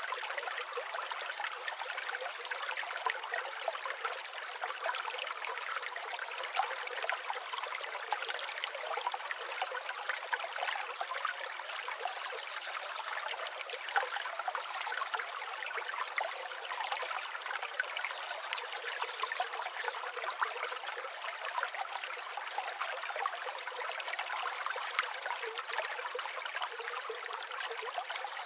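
Forest ambience: a steady, even rush of noise with fine flickering detail throughout and no low rumble.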